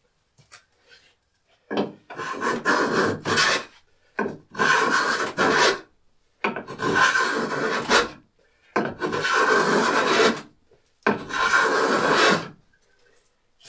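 A block plane shaving along the rough split edge of a log, truing it flat: about five long push strokes of a second and a half to two seconds each, with short pauses between.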